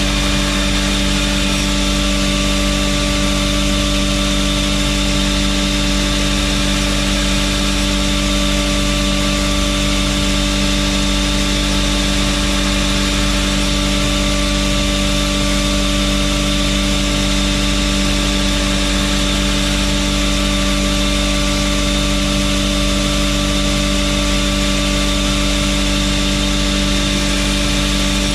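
Belt grinder running at a steady speed, its electric motor giving a constant hum with several steady tones over an even rushing sound.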